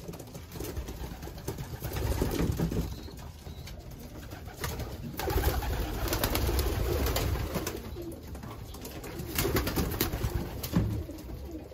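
Homing pigeons cooing, in repeated swells, with a few sharp wing flaps as birds take off and are caught.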